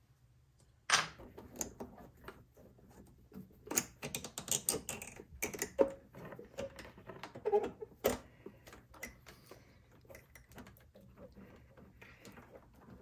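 Irregular clicks, knocks and rattles of a generator's carburetor, with its hoses and linkage, being handled and worked loose by hand. The knocks are sharpest and thickest in the first two thirds, loudest about a second in, and thin to faint ticks near the end.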